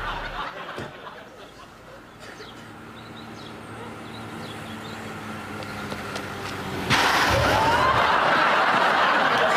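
A car engine approaching along a road, its steady hum slowly growing louder. About seven seconds in, a sudden loud burst of studio audience laughter takes over.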